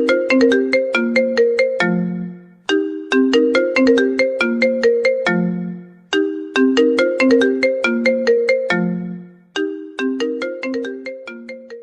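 Mobile phone ringtone playing: a short melody of quick notes that ring and fade, the same phrase repeating about every three and a half seconds.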